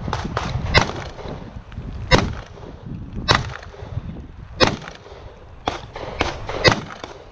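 Pistol shots fired one at a time at a steady pace, roughly one a second, some louder and some fainter, each with a short echo.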